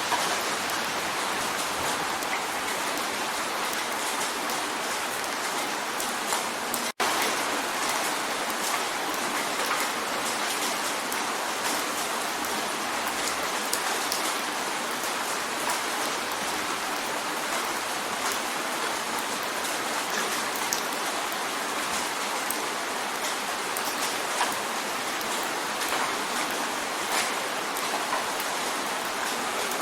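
Rain drumming on a window: a steady, dense hiss of rain with scattered sharper drop ticks. The sound cuts out for an instant about seven seconds in.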